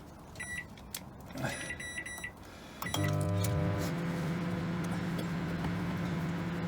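Microwave oven keypad beeping a few times as it is set, then the microwave starting up about three seconds in and running with a steady hum.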